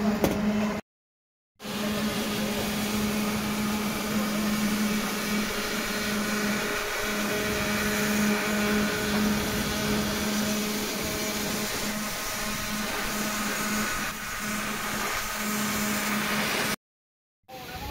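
A machine engine or motor running steadily, a constant-pitched hum over broad mechanical noise. The sound drops out to silence briefly twice, about a second in and near the end.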